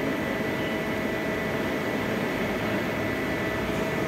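Steady mechanical hum and hiss with a faint constant whine from a powered-up CNC vertical lathe standing idle, its spindle not yet turning.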